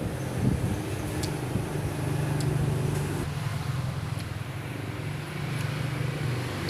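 A motor vehicle engine running steadily with road noise, its low hum shifting in pitch a couple of times.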